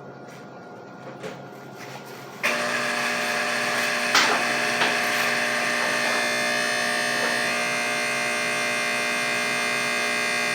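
A handheld electric power tool switches on about two and a half seconds in and runs steadily at speed, with a sharp knock about a second and a half later as it meets the work.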